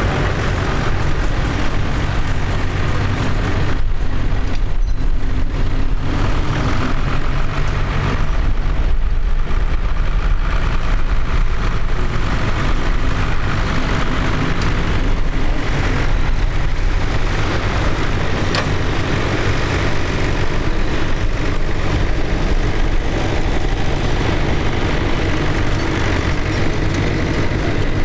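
A farm tractor's diesel engine running steadily under load as it pulls a mounted plough through stubble, with a constant low hum.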